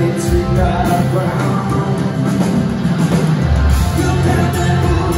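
Live rock band playing loud with electric guitars and bass guitar on stage.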